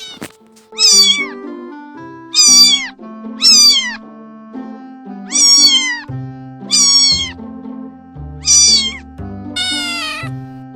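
Domestic cat meowing seven times, each meow bending down in pitch at the end, over background music with steady low notes.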